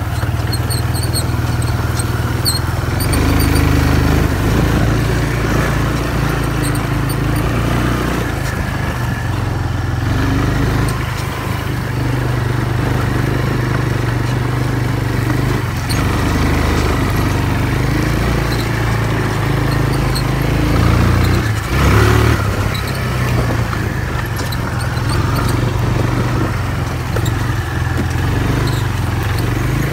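Four-wheeler ATV engine running under way through tall grass, its pitch stepping up and down with the throttle. A few high squeaks come in the first seconds, and there is a brief louder burst about 22 seconds in.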